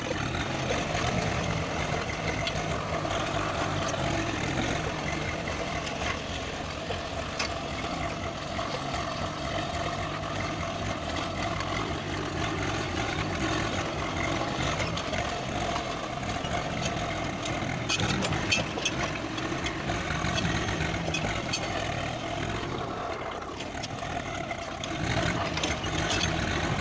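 Tractor diesel engine running steadily under load while it pulls a mounted tine plough through dry soil, with a few sharp clicks.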